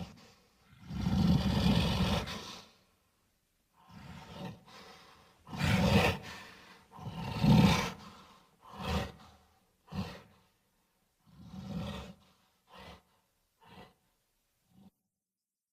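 A series of great-ape roars and grunts used as creature sound effects for an orangutan character. A long roar comes about a second in and two loud roars come near the middle. These are followed by shorter grunts that come quicker and get fainter and briefer toward the end.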